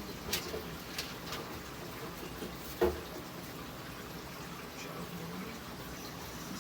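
Packages and the plastic meat drawer of a refrigerator being handled: a few light clicks, then one louder knock about three seconds in, over a steady hiss.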